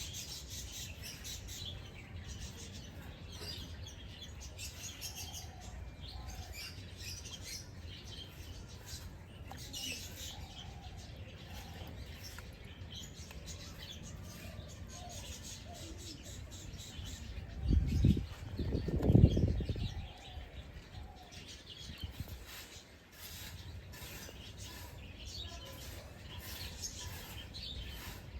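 Small songbirds chirping and twittering in quick, high notes. About eighteen seconds in, two loud, low, dull bumps of unclear origin, each lasting about a second, stand out over the birdsong.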